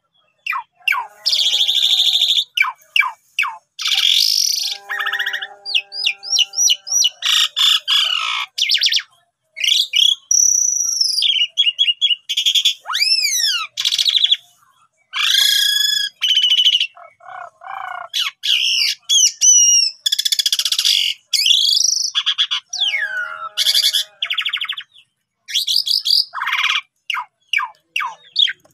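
Asian pied myna (jalak suren) singing a long, varied song: clear whistles, rising and falling glides, rapid chattering trills and harsh rasping notes, delivered in quick bursts with short pauses between them.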